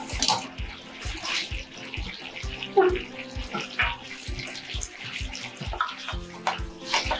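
Water-soaked cabbage sizzling in hot oil in a frying pan as it is turned with tongs and tossed. Background music with a steady beat plays underneath.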